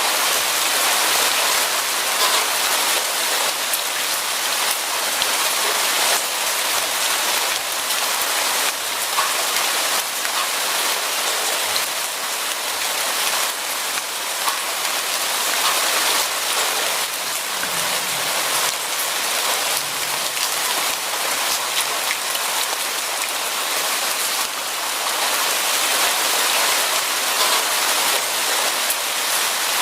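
Steady rain falling on a surface, an even dense hiss with many small drop patters.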